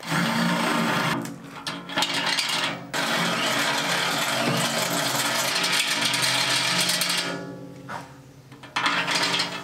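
Power drill with a step bit boring out mounting holes in a tractor loader bucket. It runs in several bursts with short pauses, the longest lasting about four seconds.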